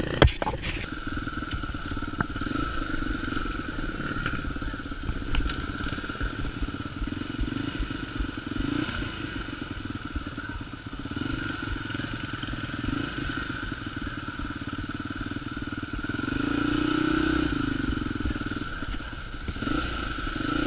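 Dirt bike engine running while riding, picked up by a camera mounted on the handlebars, with clattering from the rough ground. A few sharp knocks come right at the start, and the engine pulls harder about three-quarters of the way through.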